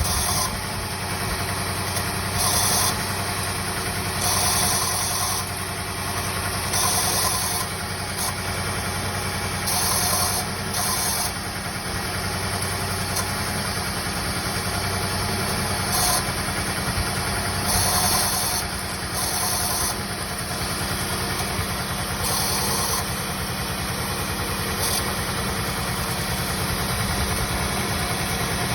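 2002 Toyota Camry XV30 engine idling steadily. A high hiss comes and goes every two to three seconds, and the owner cannot account for this noise.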